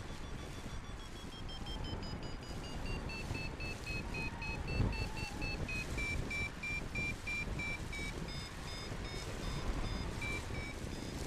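Paragliding variometer beeping in a climb: a steady string of short beeps, about three a second, whose pitch slowly falls as the climb weakens. Wind rushes on the microphone underneath.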